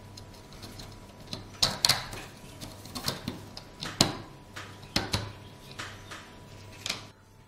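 A laser-cut wooden spiral plate being handled and seated over bolts on a plexiglass disc, giving a series of irregular light clicks and taps, about eight of them, against the table.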